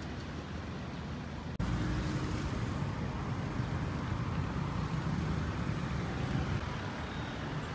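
Road traffic going by in a steady rumble, with a brief break about one and a half seconds in, after which it is louder.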